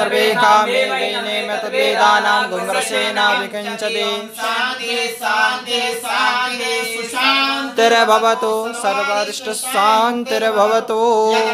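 Several voices chanting Sanskrit Vedic mantras in unison, sung in a continuous, drawn-out melody.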